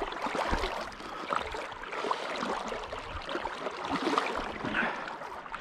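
Shallow river water splashing and burbling over rocks, with irregular small sloshes and a couple of low knocks near the start.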